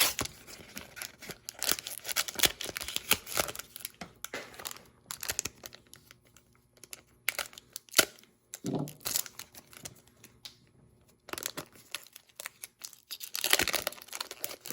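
Foil wrapper of a Pokémon Sword and Shield booster pack being torn open and crinkled in irregular bursts with short pauses, and a sharp click about eight seconds in.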